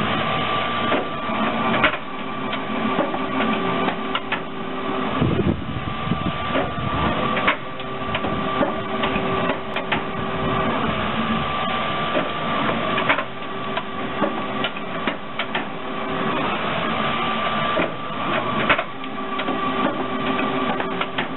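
Automatic mango and kiwi peeling machine running. It makes a steady mechanical clatter of clicks and knocks, with a humming tone that comes in and drops out about every five seconds.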